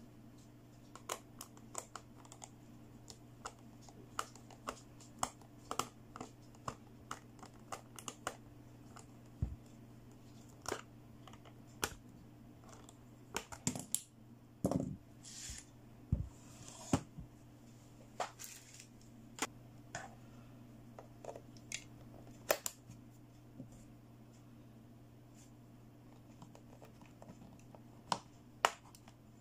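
Light plastic clicks and taps of a toy's battery compartment being worked by hand: a small screwdriver undoing the cover screw, a brief scraping as the plastic cover comes off about halfway through, and batteries clicking into the spring contacts near the end.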